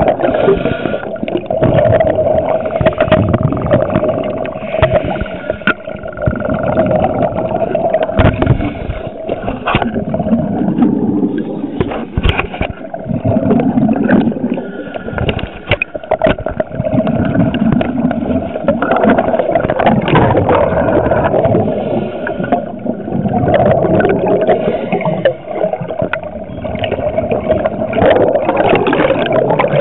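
Scuba regulator breathing heard underwater through a camera housing: bubbling exhalations swelling and fading every few seconds, with clicks and a steady hum underneath.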